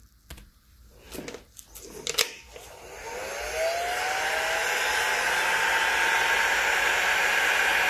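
A few light handling knocks, then an electric heat gun switches on about three seconds in: its fan whine rises as it spins up and settles into a steady blowing hiss.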